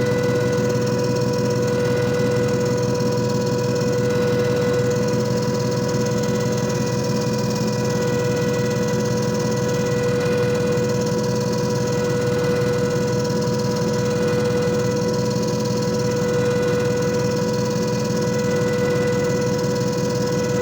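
JFJ Easy Pro disc repair machine running steadily: an electric motor's constant hum with a steady whine on top.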